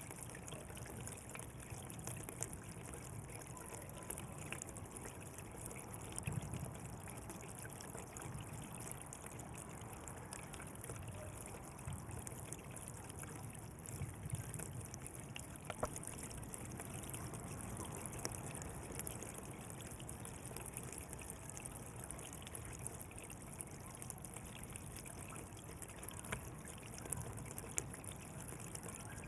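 Water flowing steadily along a channel, trickling and splashing in an even stream with small irregular drips and splashes.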